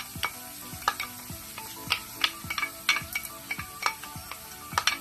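Garlic and shallots sizzling in hot oil in a pan while a utensil stirs them, knocking and scraping against the pan in about a dozen sharp, irregular clicks over the steady sizzle.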